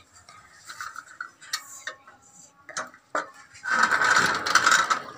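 A homemade toy tractor and trailer with metal parts clicking and clattering as they are handled and lined up for hitching, with a louder, longer rattle near the end.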